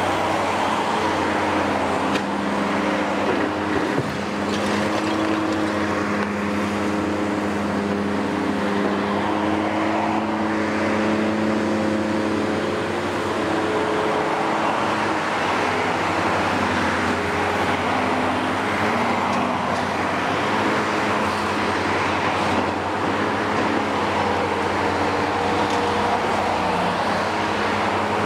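Diesel engines and hydraulics of heavy demolition excavators working steadily, the engine note shifting up and down as the hydraulics take load. A single knock of rubble comes about four seconds in.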